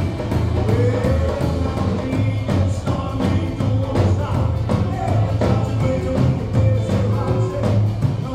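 Live rockabilly band playing: drum kit keeping a steady fast beat, upright double bass, acoustic and electric guitars, and a man singing.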